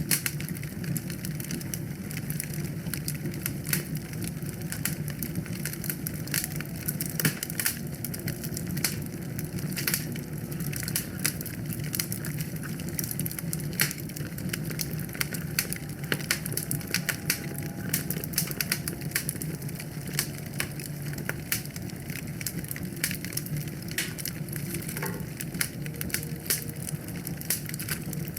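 Wood fire burning in a fireplace, with dense, irregular crackling and snapping over a steady low rumble.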